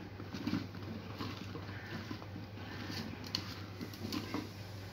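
Faint soft patter with a few light clicks, about three seconds in and again about a second later: masala-coated cauliflower florets being handled in a steel bowl.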